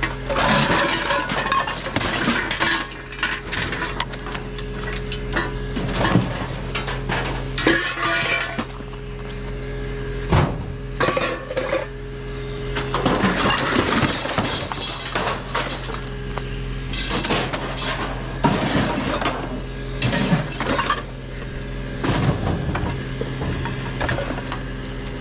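Rummaging through a pile of discarded junk: repeated clinks, clanks and knocks of metal and glass objects being shifted and dropped, with bursts of rattling, over a steady low hum.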